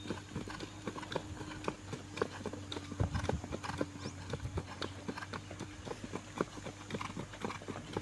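A ridden pinto horse's hooves beating on a packed dirt arena, a quick, continuous run of hoofbeats, several a second.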